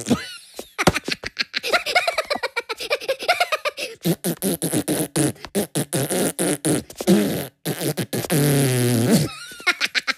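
A cartoon Minion voice blowing long, sputtering raspberries with its lips: rapid rattling mouth-fart noises that slide up and down in pitch, in a string of bursts.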